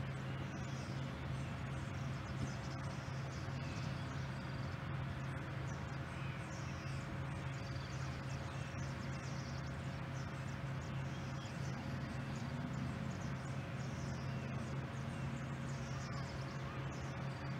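Air Force One's Boeing 747 (VC-25A) taxiing with its four jet engines at low power: a steady low hum with a constant whine over it.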